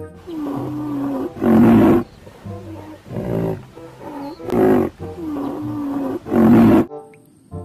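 Deep animal calls: a drawn-out low growl that ends in a loud short roar, heard twice, with shorter roars in between.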